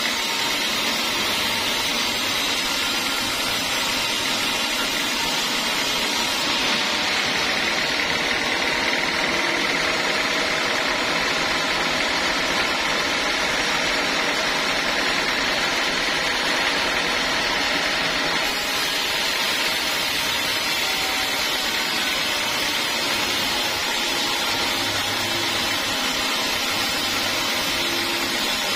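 Vertical band sawmill running steadily while its blade rips lengthwise through a teak log to cut a board; the sawing noise grows stronger from about six seconds in until about eighteen seconds in.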